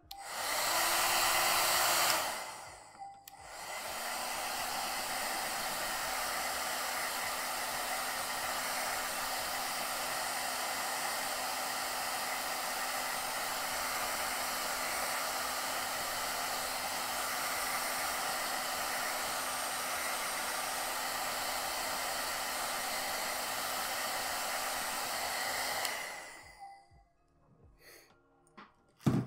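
Small electric blower run to dry a fresh layer of paint: a rush of air with a steady hum under it. It comes on louder and higher for about two seconds, cuts briefly, then runs steadily at a lower setting until it switches off near the end. A few small clicks follow, with one sharp click at the very end.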